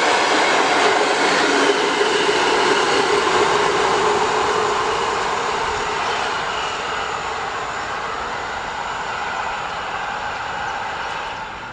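PKP Intercity passenger coaches passing at speed on the rails, with dense wheel and rail rolling noise. The noise fades steadily as the train draws away, then drops off suddenly near the end.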